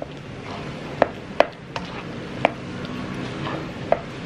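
Mashed potatoes being stirred in a pan with a utensil, which knocks sharply against the pan about five times at uneven intervals.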